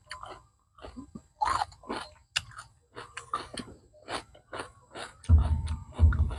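Close-up mouth sounds of a person chewing food, with irregular wet clicks and smacks. Two dull low thumps about five and six seconds in are the loudest sounds.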